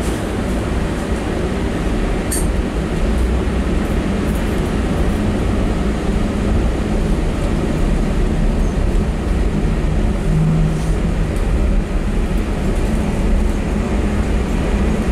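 Steady rumble and hum inside a Terminal Link airport people-mover car running along its guideway, with a faint click about two seconds in.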